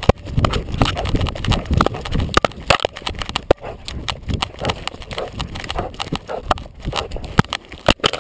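A collar-mounted camera jolting and rubbing against a Labrador's fur as the dog moves through snow, with a rapid, uneven run of knocks and thuds from its gait.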